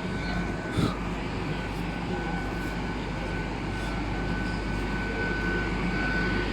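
Train idling at the platform: a steady engine and fan drone with a high, steady whine above it, growing slightly louder near the end.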